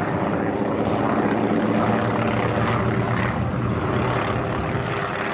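Two piston-engined propeller fighter planes flying overhead together, their engines making a steady, even drone.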